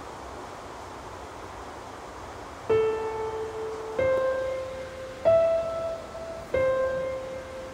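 Steady rain hiss, then a slow piano melody begins over it about two and a half seconds in: four single notes, each struck about a second and a quarter apart and left to ring.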